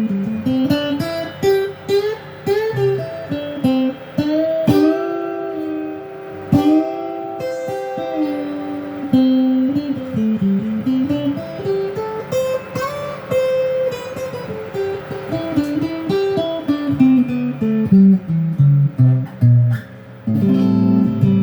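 Electric guitar playing a single-note melodic lead with string bends and runs up and down the neck, over a steady held note.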